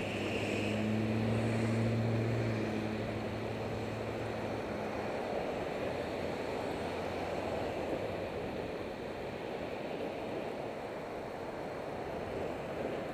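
Wind rushing over a bicycle helmet camera's microphone with road traffic alongside. A motor vehicle's engine hum is loudest in the first two to three seconds and fades away by about five seconds in.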